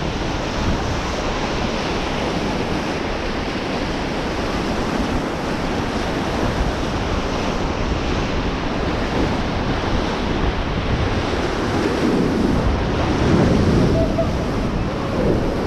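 Rushing whitewater of river rapids, a steady wash of water noise with wind buffeting the microphone, growing louder about twelve seconds in.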